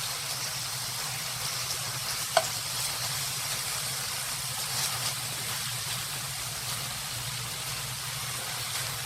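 Duck pieces sizzling steadily as they fry in a pan, with one sharp click about two seconds in.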